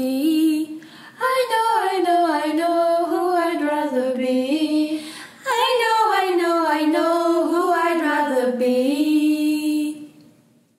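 A woman's voice singing unaccompanied in three gliding phrases, with short breaths between them; the voice fades out about ten seconds in.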